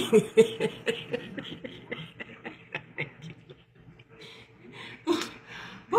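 A woman laughing quietly under her breath: quick breathy pulses, about five a second, fading away over the first three seconds or so, then a short louder laugh a little after five seconds.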